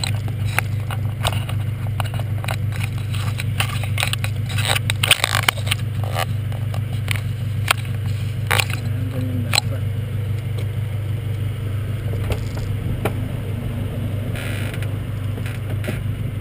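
Honda Civic engine idling as a steady low hum, with repeated close knocks, clicks and scrapes from hands adjusting the camera mount on the front fender, busiest about five seconds in.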